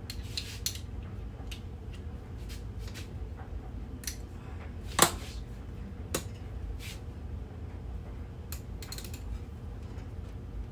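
Hand tools and brake parts clinking and clicking as they are handled at a workbench: scattered light metal taps, with one sharper clank about five seconds in.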